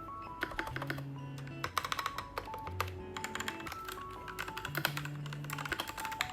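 Typing on a full-size mechanical keyboard with red linear switches: quick, irregular keystroke clicks, several a second, over background music.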